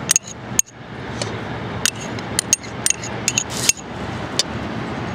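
Metal spoon clicking and tapping against a cup and a plastic mixing bowl while fried onions are scraped out into the bowl: a dozen or so sharp, irregular clicks over a steady background hiss.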